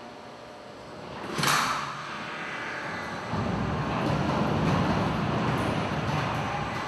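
Checkerboard-type mechanical parking system in operation: a sudden rushing clatter about a second and a half in, then a steady low rumble of the drive from about three seconds on as a parking pallet moves.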